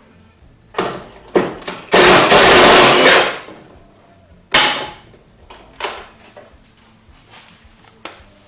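A power tool, an impact wrench, runs in one loud burst of a little over a second, loosening a worn bolt. Sharp metallic knocks of tools and parts come before and after it, the loudest a bit after the burst.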